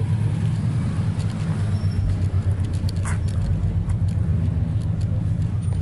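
A vehicle engine idling: a steady low rumble with a constant hum, and a few faint clicks over it.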